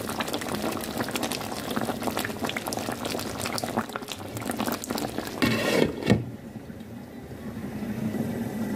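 Chicken and potato curry bubbling and popping in a pan on a low flame. About five and a half seconds in, a louder scrape with a short ring as a glass lid is set on the pan, after which the bubbling is quieter and muffled.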